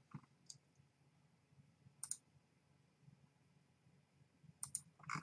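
A few faint, sharp computer mouse clicks, spaced out, with two in quick succession near the end.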